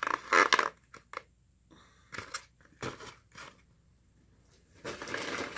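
Fast-food paper bags and packaging being handled: a loud rustle at the start, a few scattered taps and crinkles, then steady crinkling again near the end.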